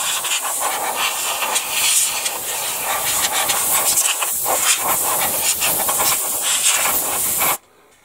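Airbrush blowing dry compressed air, with no paint in it, across a plastic scale model to blow it clean before decaling: a loud, fluctuating hiss that cuts off suddenly near the end.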